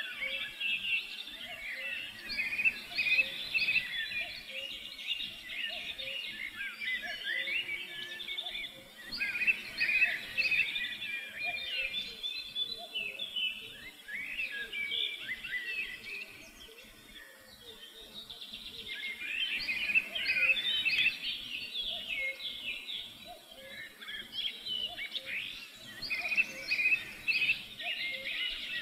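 A chorus of many small birds chirping and twittering in dense, overlapping bursts. It thins out to a lull a little past halfway, then picks up again.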